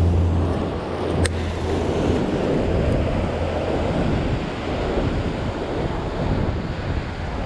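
Sea surf washing and churning against a rock ledge, with wind buffeting the microphone in a steady low rumble. A single sharp click about a second in.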